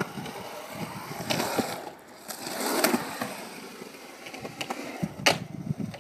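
Surfskate wheels rolling and carving on rough concrete, the rolling noise swelling as the rider pumps. A sharp clack a little after five seconds in as the board meets the concrete box.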